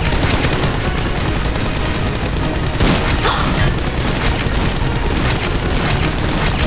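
Rapid bursts of gunfire sound effects over background music, dubbed onto the toy-blaster action rather than the blasters' own sound, with a louder burst about three seconds in.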